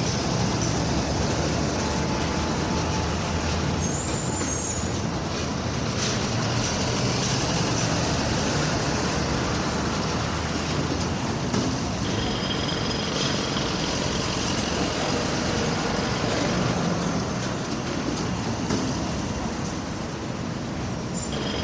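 Steady din of a high-rise construction site by a city street: engines and traffic running, with scattered knocks and a high squeal lasting a few seconds about halfway through.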